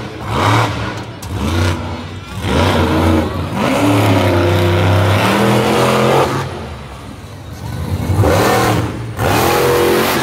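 Monster truck engine revving hard in repeated bursts, its pitch rising and falling. The longest and loudest run is through the middle; it eases off, then revs up twice more near the end.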